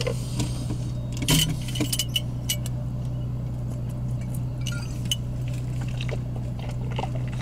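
A glass bottle being handled and drunk from, giving scattered sharp clinks and clicks, the loudest about a second in. Under them is the steady low hum of a car idling, heard from inside the cabin.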